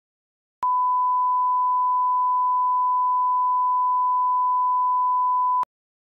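Bars-and-tone reference signal: a steady pure 1,000-hertz line-up test tone that accompanies colour bars, held at one pitch for about five seconds. It starts abruptly about half a second in and cuts off abruptly near the end.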